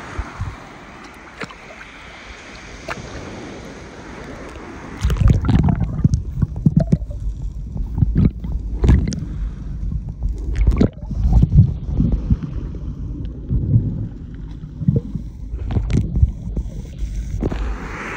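Water heard through a phone's microphone dipped under the surface. At first it is the open hiss of waves and wind. About five seconds in, the sound goes muffled and the high end drops away, with irregular low thumps and sloshing while the phone is underwater. The open-air wave noise comes back near the end.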